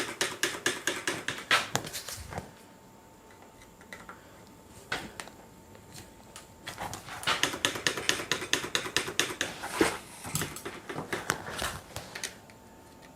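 Rapid ratcheting clicks in two runs, one at the start and a longer one about seven seconds in, during an adjustment of the bike's V-brake arm tension.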